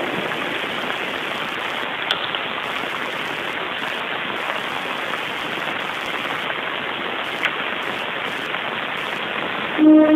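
Steady, even hiss of a church's room noise with no speech, broken by two faint clicks about two and seven seconds in. Just before the end, music starts with held notes.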